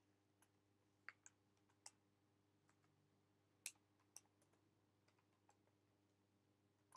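Faint typing on a computer keyboard: about a dozen short, irregular keystroke clicks with pauses between them, over a low steady hum.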